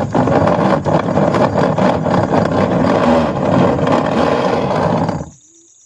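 Washing machine running loudly, a dense mechanical rattling and grinding with many small knocks; it cuts off suddenly about five seconds in.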